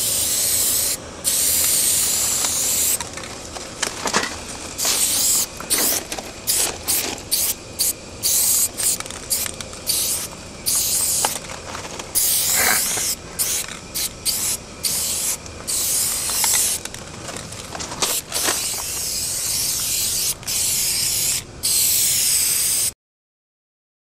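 Aerosol spray paint can hissing as paint goes on: long sprays at first, then a run of many short, quick bursts, then longer sprays again. The sound cuts out completely about a second before the end.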